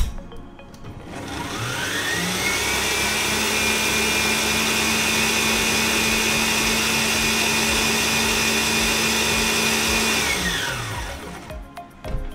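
Electric mixer motor spinning up, running steadily with a high whine for about eight seconds, then winding down, whipping cream to soft peaks.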